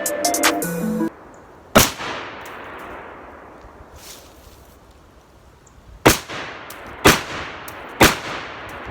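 Four gunshots, each trailing off in a fading echo: one about two seconds in, then three about a second apart near the end.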